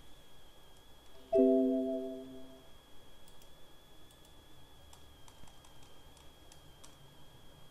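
A single chime-like tone, starting suddenly and fading out over about a second, followed by a few faint computer keyboard key clicks.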